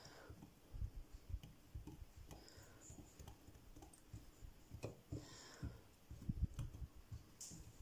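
Faint scattered clicks and short, soft low knocks of kitchen utensils being handled while syrup is strained through a chinois, with a couple of brief scraping sounds.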